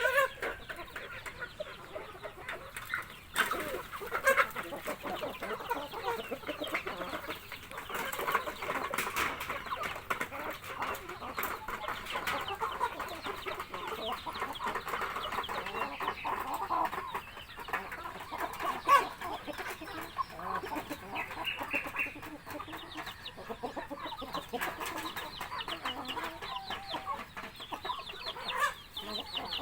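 A flock of chickens clucking continuously, many birds calling over one another, with a few sharp knocks.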